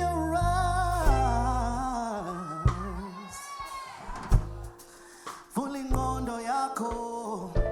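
Live band playing: a singer holding long, wavering sung notes over low bass notes and occasional drum hits.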